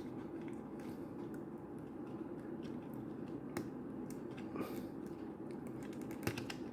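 Faint small plastic clicks and taps from handling a small plastic action figure and its parts, over a steady low hum.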